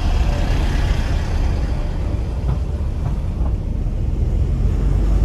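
Steady low rumble of moving road vehicles, heard from a car driving close alongside a bus: engine and tyre noise, growing a little louder toward the end.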